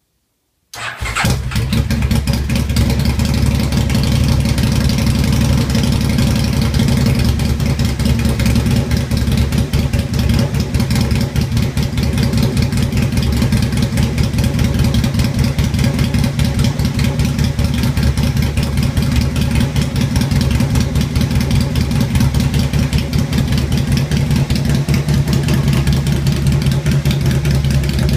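Aprilia RSV 1000 Mille R 998 cc V-twin motorcycle engine, installed in a drag van, started for the first time: it fires abruptly about a second in and then runs steadily at a loud fast idle through a short open exhaust.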